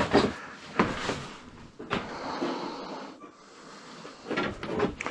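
Someone rummaging through things in a small room: a few short knocks, then a stretch of rustling, with more handling noise near the end.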